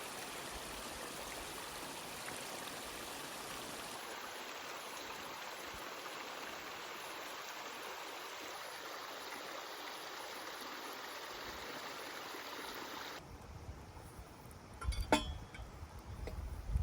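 Steady rushing of a flowing stream that cuts off abruptly about thirteen seconds in, giving way to quieter background with a sharp clink a couple of seconds later.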